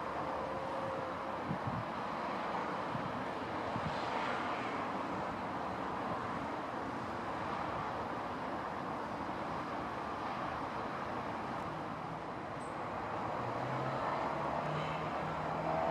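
Steady rushing noise of a Cessna Citation CJ3 business jet's twin turbofan engines running, with a faint whine that rises slightly near the end.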